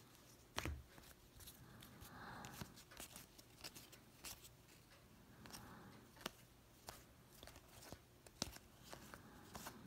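Faint handling of a stack of Panini Contenders football trading cards: cards slid off one by one, with sharp little clicks and two short sliding rustles.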